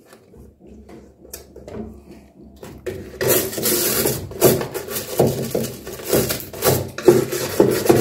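Stiff bristle brush scrubbing the wet floor of a washing machine drum around the pulsator shaft hub in rough back-and-forth strokes, about two a second. The scrubbing starts about three seconds in, after a few faint knocks.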